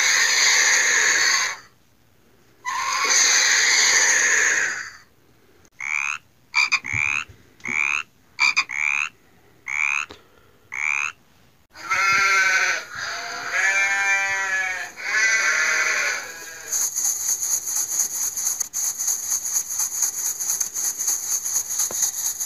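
A run of animal calls. First come two long, harsh screeching cries. About six seconds in, they give way to roughly seven short frog croaks. Near the middle come three sheep bleats, and then a steady crackling hiss takes over for the last few seconds.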